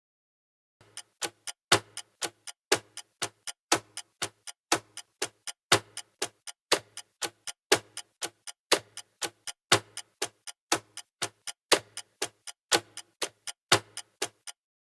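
A smartphone ringtone of short, sharp clicking notes in a steady repeating rhythm, about four notes a second with a stronger note once a second. It starts just under a second in and stops shortly before the end.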